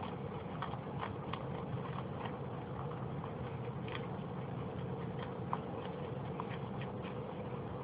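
Faint, irregular little clicks and ticks, a few a second, from two rabbits grooming each other, over a steady background hum.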